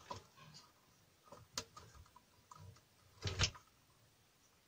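Light clicks and taps, then one louder knock a little over three seconds in, from an ATX power supply's circuit board and metal case being handled and shifted.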